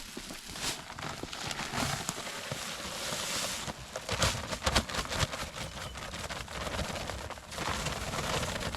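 Gritty scraping and rustling of dry concrete mix being worked into a fence-post hole, with a quick run of clicks and knocks about four to five seconds in.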